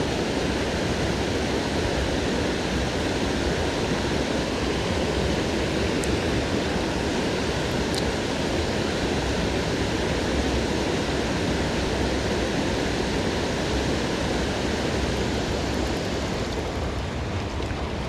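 Steady rushing of a fast mountain stream swollen with rain, with a small waterfall spilling into it, easing slightly near the end.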